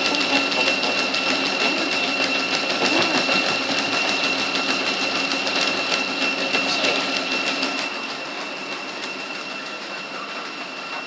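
Motorized treadmill running with a steady high whine and fast, even ticking from the moving belt, a small dog trotting on it. The sound drops in level about eight seconds in.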